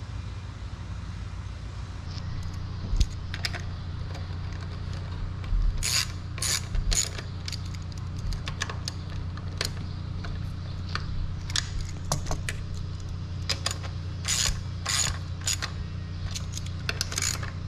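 Ratchet wrench clicking in short runs, with light metal clinks, as the 10 mm bolts of a newly fitted throttle body are run in. A steady low hum runs underneath.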